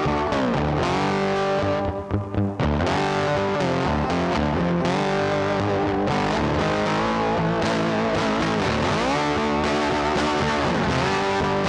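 Background music led by electric guitar with distortion and effects, with sliding bends in pitch and a short break about two seconds in.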